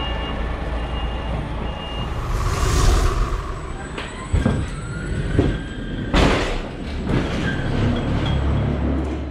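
Heavy truck's diesel engine running, with a high reversing beeper pulsing about once a second that stops about two seconds in. Several sharp hisses and knocks follow, the loudest about six seconds in.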